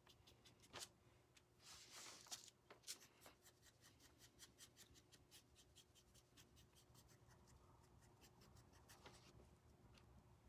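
Faint, quick strokes of a paintbrush scratching and dabbing on a small wooden starfish cutout, several strokes a second, as a light weathered coat of paint is brushed on.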